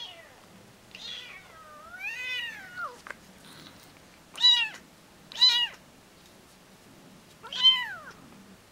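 Three-week-old kitten meowing in high, thin cries: a long wavering meow about two seconds in, then three loud short meows in the second half.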